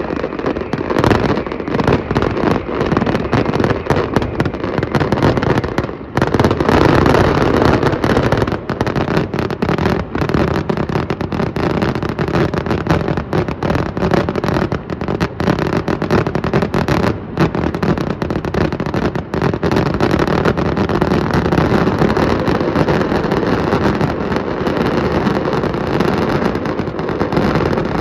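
Fireworks display in a dense, continuous barrage: overlapping bangs and crackle merge into one steady rumble, with a brief dip about six seconds in.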